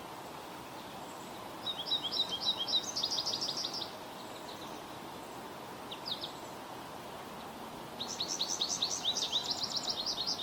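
American goldfinch singing: two phrases of quick, high twittering notes, each about two seconds long, with a couple of short notes between them, over a steady background hiss.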